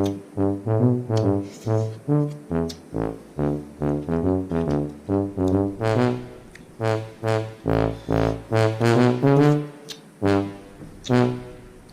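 Background music: an upbeat tune led by brass, with a bouncing bass line and a steady beat.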